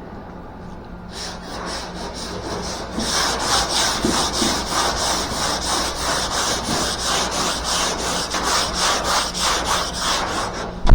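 120-grit sandpaper rubbed back and forth by hand over a car's roof panel. The scraping starts faint about a second in and from about three seconds settles into steady strokes, about four a second.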